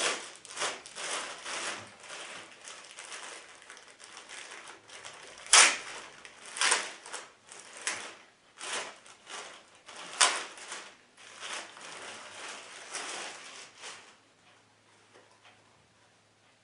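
Packaging rustling and the cap being handled as it is taken out: a run of irregular crackles and scrapes, the sharpest about five and a half seconds in. The noise dies away a couple of seconds before the end.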